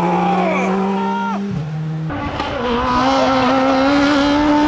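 Rally car engine running at steady revs. The revs drop about one and a half seconds in, and about two seconds in the sound changes abruptly to another steady, slightly higher engine note.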